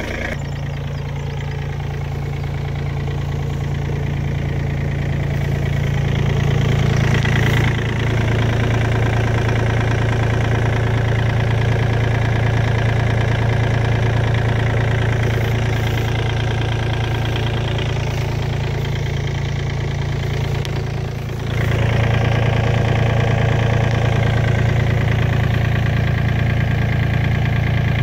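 Komatsu PC35MR-2 mini excavator's diesel engine idling steadily with a low hum, growing louder over the first several seconds, with a brief dip about two-thirds of the way through.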